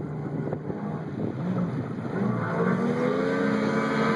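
Yamaha Exciter jet boat's engine pulling away from idle. Its pitch rises and it grows louder from about halfway through as the boat picks up speed.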